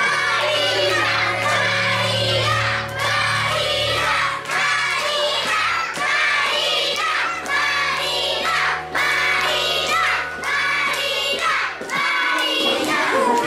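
Background music with held notes and a regular pulse, with a group of children shouting over it; the music stops about twelve seconds in.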